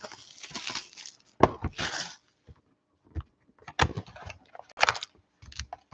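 Rustling and crinkling of a trading-card box and its wrapped pack being handled and opened, with scattered clicks and taps of cardboard and cards. It comes in short irregular spells with a quiet pause near the middle.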